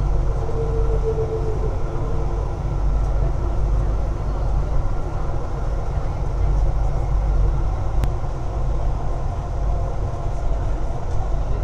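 Kelana Jaya Line LRT train running, heard from inside the carriage as a steady low rumble, with a brief whine in the first two seconds.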